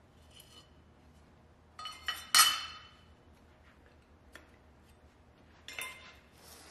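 Metal hand tools clinking against a steel workbench and a sand-casting mold: a few sharp, ringing clinks, the loudest about two and a half seconds in, and a second cluster near the end.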